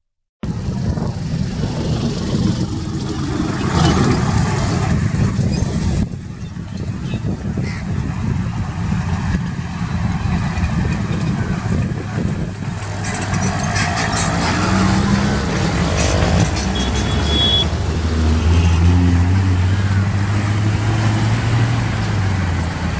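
Mixed road traffic passing close by: a bus, auto-rickshaws, motorcycles and cars, engines running and tyres on tarmac. A deeper steady engine drone comes in for a few seconds near the end.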